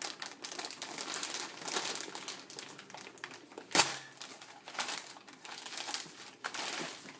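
Shipping packaging being ripped open by hand and crinkled, an irregular crackling and tearing, with one sharp snap a little under four seconds in.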